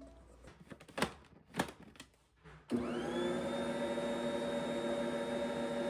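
Two light knocks, then about three seconds in an electric stand mixer switches on, its motor whine rising briefly as it comes up to speed and then running steadily as it mixes the flour and salt into sourdough pretzel dough.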